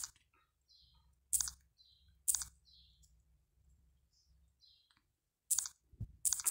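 Fingers tapping on a smartphone touchscreen while typing. A few short, sharp clicks, two in the first half and two near the end, with fainter ticks between.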